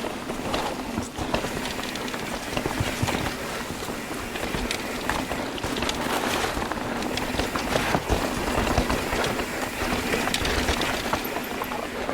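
Mountain bike rolling over rough trail, its tyres running on the ground and the bike rattling, with many short clicks and knocks throughout.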